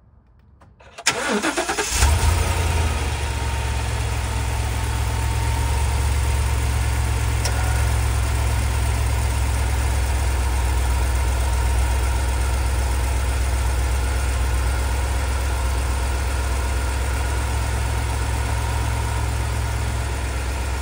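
Ford 7.3-litre gasoline V8 starting after sitting about an hour: the starter cranks briefly about a second in, the engine catches and then idles steadily.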